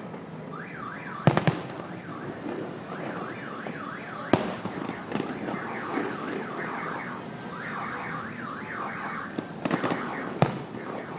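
Fireworks going off: a few sharp bangs, the loudest about a second and a half and about four seconds in, then two more near the end. They sound over an electronic wail that sweeps rapidly up and down in pitch, in the manner of a car alarm set off nearby.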